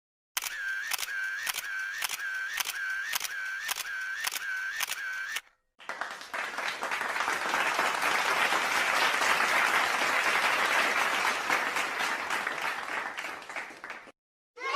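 Stock sound effects: a camera shutter clicking about twice a second for five seconds. Then, after a short gap, a long wash of applause that builds and fades out.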